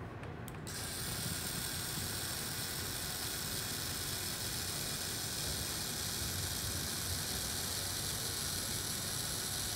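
3Doodler 3D printing pen running while it extrudes ABS plastic: a steady whirring hiss from its small drive motor and cooling fan, starting about a second in.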